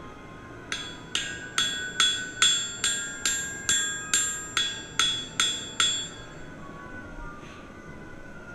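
Forging hammer striking steel while forging a putter, about a dozen blows a little over two a second, each with a bright metallic ring. The blows stop about six seconds in.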